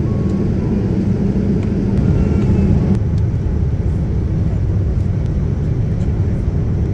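Steady cabin rumble inside a Boeing 787-9 airliner in flight: engine and airflow noise heard from a window seat. About three seconds in the rumble becomes slightly lighter as the aircraft descends on approach.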